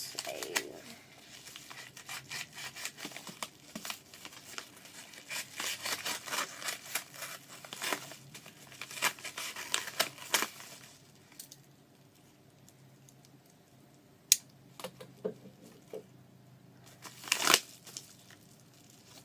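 A knife cutting and tearing open a yellow mailer envelope: a dense run of crackling and ripping for about ten seconds, then quieter handling of the envelope with a sharp click and a loud rustle near the end.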